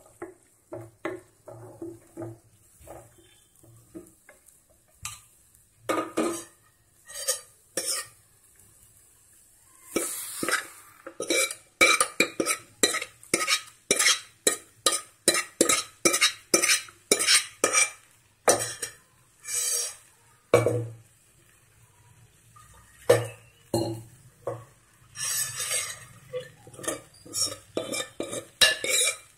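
A spatula scraping and knocking against a stainless steel pan and pressure cooker as cooked whole masoor dal is scooped into the masala and stirred. The strokes come in a quick run of about two a second through the middle, with quieter gaps before and a cluster near the end.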